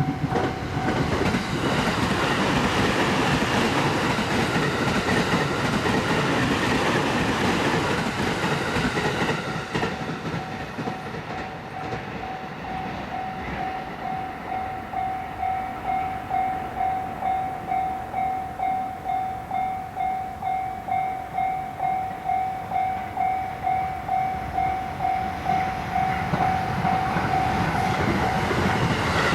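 Japanese railway level-crossing alarm ringing in steady, evenly repeated tones while a train runs past over the first ten seconds or so, its wheels clacking on the rail joints. The train noise then fades and the crossing alarm keeps ringing on its own.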